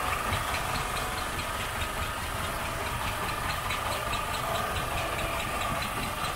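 Survey boat's engine running steadily at idle, a low rumble under a steady high-pitched hum, with faint regular ticking.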